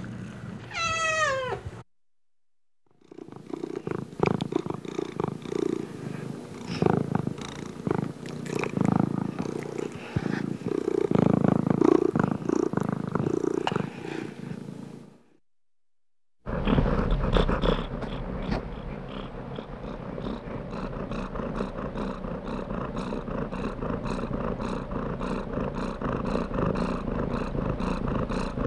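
A domestic cat meows once, falling in pitch, then, after a short silent gap, a cat purrs close up, loud and uneven. After another short gap comes a steady, evenly pulsing purr.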